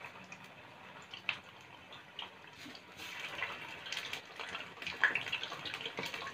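Prawn vadas (rice-batter fritters) deep-frying in hot oil in a kadai: a steady bubbling sizzle with scattered crackles, growing busier about three seconds in. The batter has just gone into the oil, which is heated and on a medium flame.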